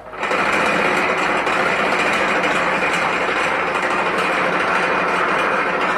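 Excavator-mounted Daedong DPD350T hydraulic vibratory pile driver starting suddenly about a quarter second in and then running loudly and steadily.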